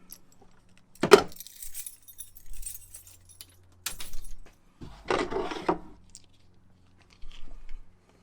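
Small loose metal parts clinking and rattling as they are handled and set down. A sharp clack comes about a second in, followed by short jangling rattles, the longest about five seconds in.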